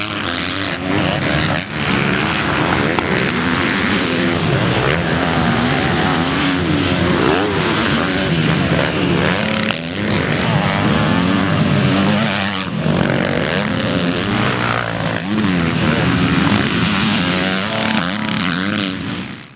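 Several motocross dirt bikes revving hard at once, their engine notes rising and falling and overlapping as they accelerate and shift.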